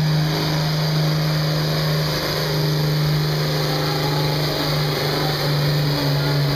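John Deere farm tractor engine running hard at a steady speed under heavy load while pulling a weight-transfer sled. The engine note holds one pitch, wavering slightly near the end.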